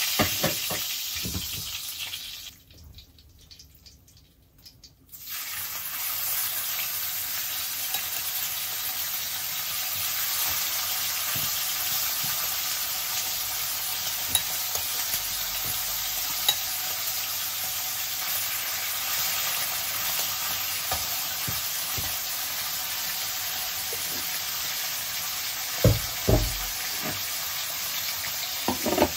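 Pork steaks sizzling as they fry in a hot frying pan: a steady hiss that drops away briefly a few seconds in, then carries on, with a couple of sharp utensil clicks near the end.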